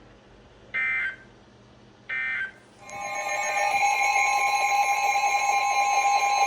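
Emergency Alert System broadcast on NOAA Weather Radio: two short, shrill bursts of SAME digital data squawk a second apart. About three seconds in, a loud, steady, two-pitched alert tone starts and holds, announcing a new severe thunderstorm warning.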